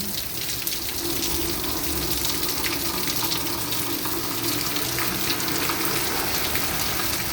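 Rain falling: a steady hiss of water with many scattered drop ticks.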